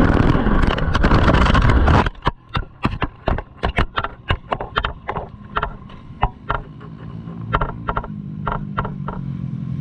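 Yamaha TT-R125 riding noise, engine and wind, cuts off abruptly about two seconds in as the bike high-sides and goes down. A quick run of sharp knocks and clacks follows as it tumbles, then thinning, scattered clicks over a low steady hum as it lies upside down.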